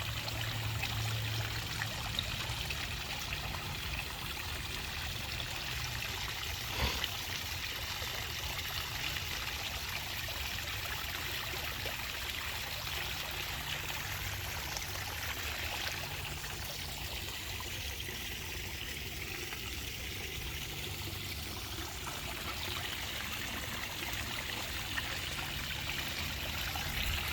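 Water running and trickling steadily, like a small stream or pond outflow, with one brief knock about seven seconds in.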